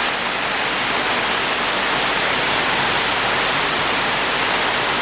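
Heavy tropical downpour: rain pouring down in a steady, even hiss, with no thunder.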